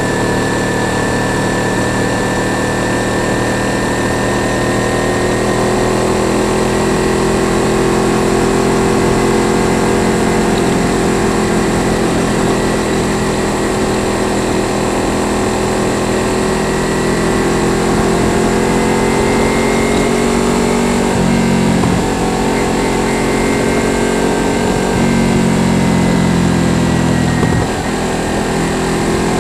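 Kawasaki Ninja 300's parallel-twin engine running under way at a fairly steady speed, its note drifting slowly up and down, over a steady rush of road and wind noise. The engine note dips briefly near the end.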